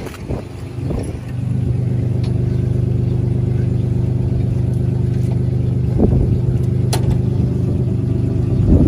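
A tractor engine comes up to a steady, even run about a second in and holds there. There are a couple of short metal clanks around the machinery.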